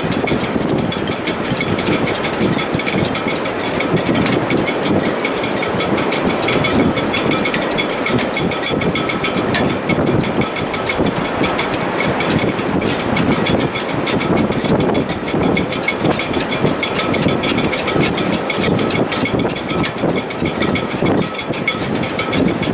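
Gale wind through a sailboat's shrouds and rigging: a steady, loud rush with faint steady whistling tones riding above it.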